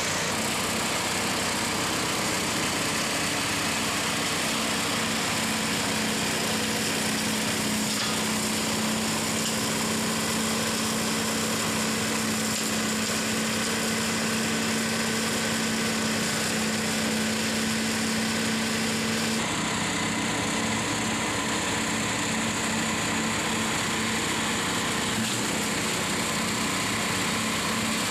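A towed flail mower's 13 hp engine running steadily at working speed, driving the hammer-flail rotor as it cuts grass, mixed with the engine of the ATV pulling it. The sound changes abruptly about two-thirds of the way through.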